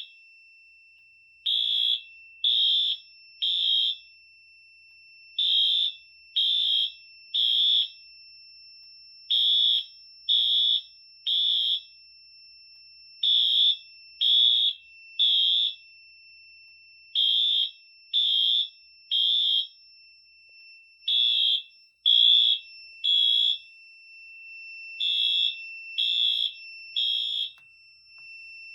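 Fire alarm sounder beeping in the temporal-3 pattern, the standard fire evacuation signal: three high beeps about a second apart, a pause, and the group repeating about every four seconds. A faint steady high tone runs underneath.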